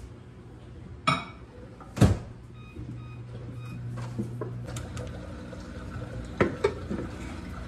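Over-the-range microwave being worked: its door knocks open and shut about one and two seconds in, a few short keypad beeps follow, then a low steady hum as it runs, warming a jar of milk. Near the end comes another knock as a steel mixing bowl is set down on the scale.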